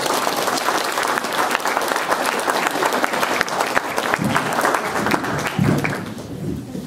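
Audience applauding, a dense patter of clapping that fades out about six seconds in, with a few voices heard as it dies away.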